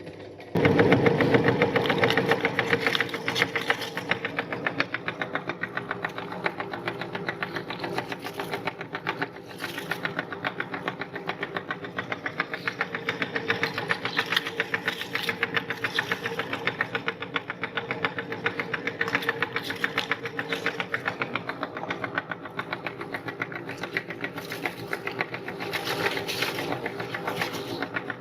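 Electric meat grinder running while it grinds heart-shaped cookies: a steady motor tone under a rapid, even run of ticks. It starts about half a second in and is loudest for the first couple of seconds.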